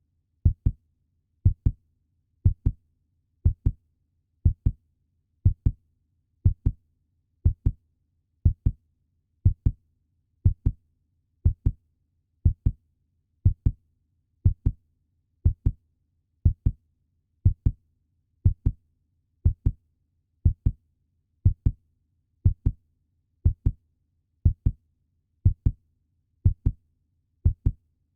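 Puppy heartbeat sound effect: a steady lub-dub, pairs of low thumps close together, about one pair a second.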